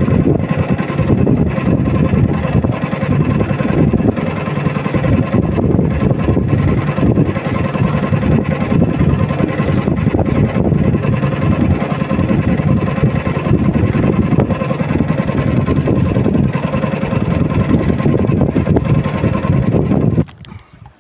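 Outboard motor of a small fishing boat running steadily at a constant speed, then cut off suddenly near the end.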